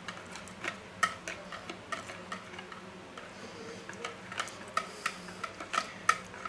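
Small wire whisk clicking against the sides of a plastic mixing bowl as it stirs a soft cream-cheese filling: light, irregular ticks, about two or three a second.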